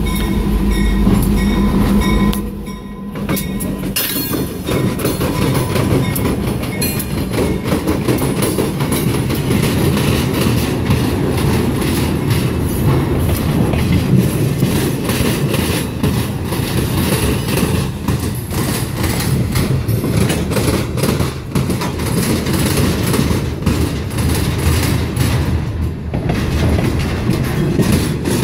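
EMD GP38-2 diesel locomotive, with its two-stroke V16 engine, running loud as it passes close by for the first couple of seconds. Then a string of empty flatcars rolls past, their steel wheels clicking and clattering steadily over the rail joints.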